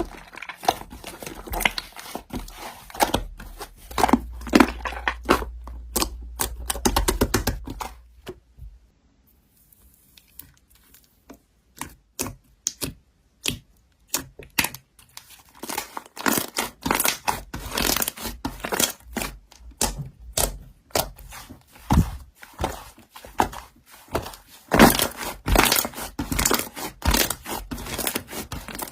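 Slime being squished and poked by hand: a dense run of crackling clicks and pops that drops away for several seconds about a third of the way in, then starts up again.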